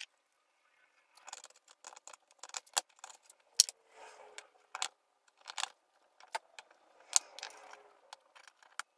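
Irregular light metallic clicks and clinks, starting about a second in, as a steel adjustable wrench is worked against the pump cap and spring of a hydraulic floor jack to press them down.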